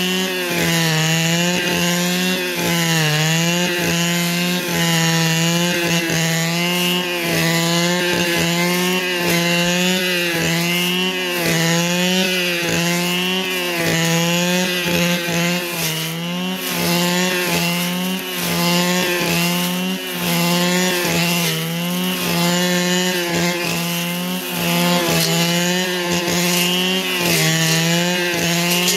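Two-stroke brush cutter running at high revs without pause, its engine note dipping briefly and picking up again every second or two as the blade takes load in the growth.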